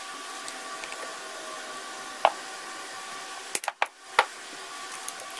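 Outboard powerhead mounting bolts being worked out by hand, with a few sharp metallic clicks as the tool and bolts are handled. There is a loud click a little past two seconds in, a quick cluster of clicks around three and a half seconds, and another loud click just after four seconds, over a steady background hum.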